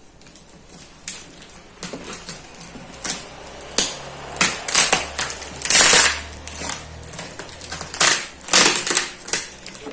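Plastic wrapping on a cardboard product box being handled and pulled at: irregular crinkling and rustling in quick bursts, loudest about six seconds in and again near the end.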